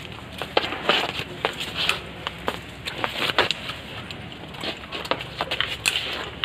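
A run of irregular sharp clicks, knocks and scuffs, several to the second, over a steady low background hum.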